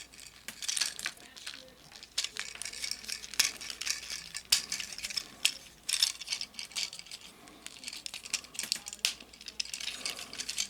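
Plastic parts of a Transformers Cyberverse Drift action figure clicking, rattling and scraping as it is handled and folded into vehicle mode: many irregular sharp clicks with light rubbing between them.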